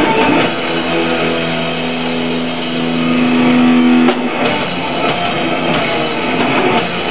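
Thrash metal band playing live with distorted electric guitar. One long held note cuts off sharply about four seconds in, and a denser, noisier full-band sound follows.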